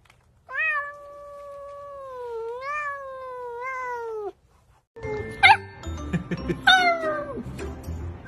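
A cat's single long, wavering meow lasting about three and a half seconds, falling in pitch at its end. After a short break, a puppy gives two short high cries that fall steeply in pitch.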